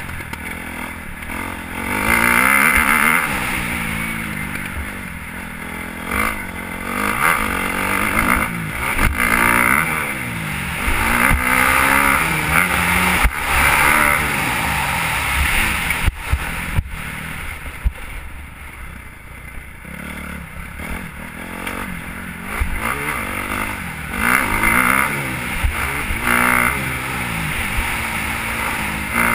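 Dirt bike engine revving up and dropping back again and again, heard from the rider's helmet camera, with a couple of sharp knocks about 16 to 17 seconds in.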